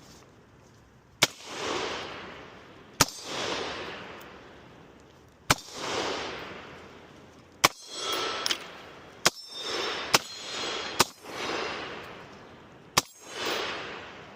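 Gunshots: about eight single shots fired at an uneven pace, a second or two apart, each followed by a long rolling echo.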